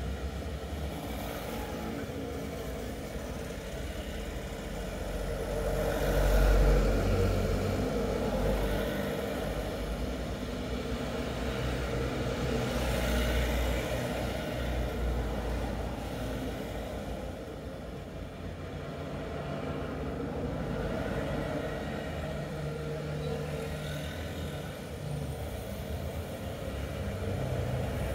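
Road traffic passing: cars, motorbikes and three-wheeler auto-rickshaws going by one after another. The loudest pass comes about six to seven seconds in, with smaller swells later and another vehicle coming close near the end.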